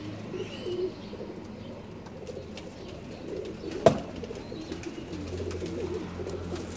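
Domestic pigeons cooing over and over in a low warble, with a single sharp knock about four seconds in.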